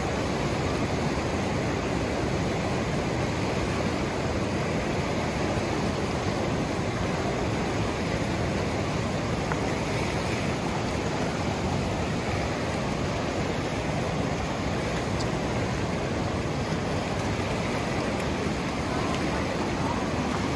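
Fast-flowing, white-water river rushing over a rocky bed: a steady, unbroken noise of churning water.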